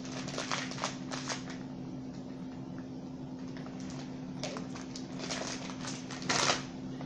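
Crinkling and crackling of food being handled: a plastic instant-noodle packet and cooked crab-leg shells. It comes in short clusters about a second in and again near the end, loudest just before the end, over a steady low hum.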